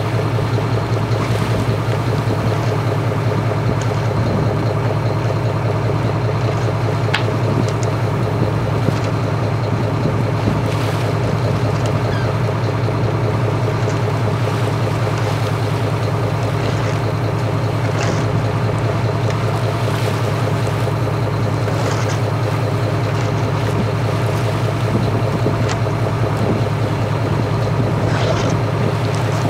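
Fishing boat's engine running steadily while underway, a constant low drone, with water and wind noise and a few light ticks.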